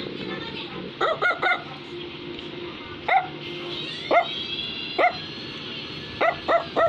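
Short, high-pitched yapping barks, about nine in all: three in quick succession about a second in, single barks roughly a second apart, then another quick run of three near the end.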